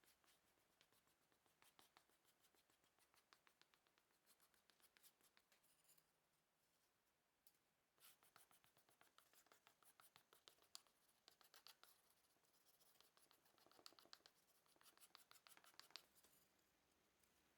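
Faint handwork on wood: quick runs of light scratches and small clicks, with a quieter pause about six seconds in.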